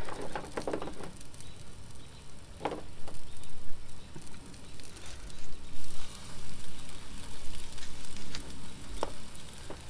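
Breaded trout pieces frying in hot oil in a pan on a camp stove: a steady sizzle with small crackles and pops.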